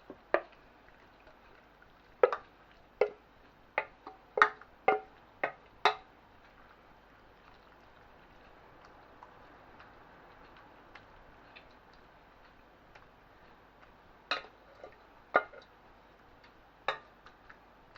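Kitchen utensil knocking and scraping against a pan and baking dish as the pasta mixture is tipped and spooned across: a run of sharp clinks a couple of seconds in, then a few more near the end.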